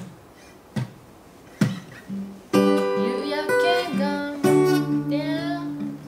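Three evenly spaced taps about 0.8 s apart, then an acoustic guitar strummed and picked for a few seconds, its chords ringing on; the player calls this tuning.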